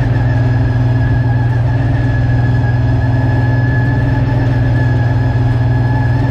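V8 engine of a tube-frame Late Model race car running steadily, heard from inside the cockpit, its pitch holding even without revving.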